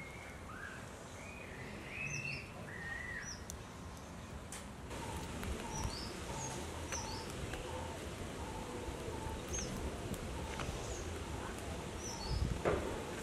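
Birds chirping outdoors in many short, quick calls, with a run of soft repeated notes in the middle. A brief rustle and knock near the end fits firewood being handled at a hearth.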